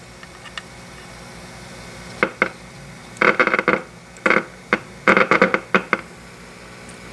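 Steady hiss and hum from a tube radio's speaker tuned to shortwave, broken from about two to six seconds in by a run of short, sharp clattering knocks.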